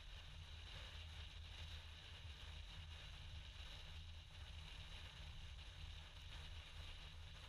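Near silence: room tone, a steady low rumble with faint hiss.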